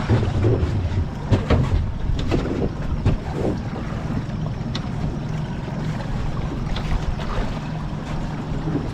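Boat motor running steadily, with wind on the microphone and a few short knocks in the first three seconds.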